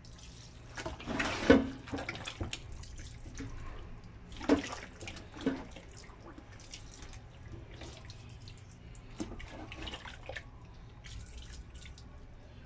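Wet splashing and squelching as white wine is poured over raw deboned chicken in a stainless steel pot and worked in by hand. It comes in irregular splashes, the loudest about a second and a half in and again around four and a half seconds, over a steady low hum.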